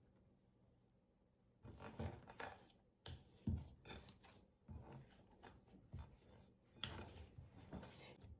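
Faint, irregular clinks and knocks of kitchen utensils against bowls and dishes, starting about a second and a half in, as food is handled while cooking.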